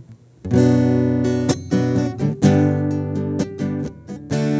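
Acoustic guitar strumming chords as a song begins, coming in about half a second in after a brief pause, with held notes ringing between the strums.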